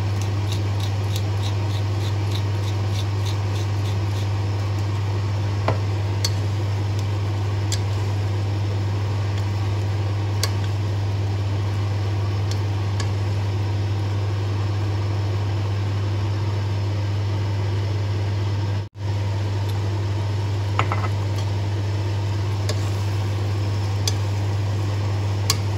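A steady low hum with a hiss under it throughout. Over it, a pepper grinder clicks in a quick run at the start, then a wooden spatula stirring a pot of pork stew gives a few light taps and scrapes.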